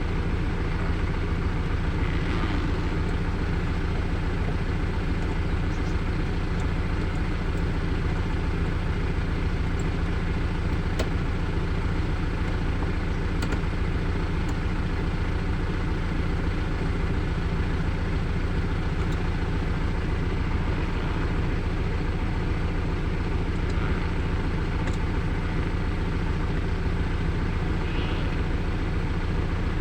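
Car engine idling steadily with an even low hum.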